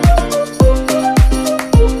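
Background music with a steady dance beat: a deep kick drum whose pitch drops on each hit, about two hits a second, under a sustained melody with chords.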